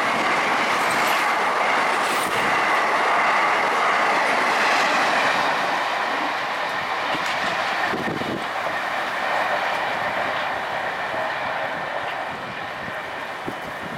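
Jan Shatabdi Express passenger train rushing past at speed: a steady rush of wheels on rail with clatter over the rail joints, fading gradually over the second half.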